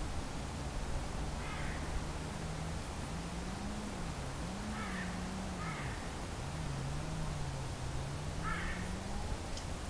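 A crow cawing four times, faint and some way off, over the steady hiss of the trail camera's microphone and a low hum that wavers in pitch.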